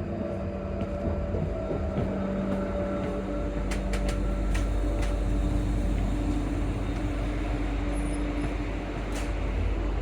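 Electric multiple unit's traction motors humming as the train slows on its approach to a stop, several steady tones over a low rumble, with a few sharp clicks from the carriage.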